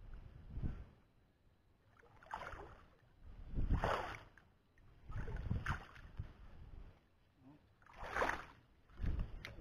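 Repeated swishing, splashing swells, about every one and a half to two seconds, of someone wading through grass and shallow water, with a low wind rumble on the microphone.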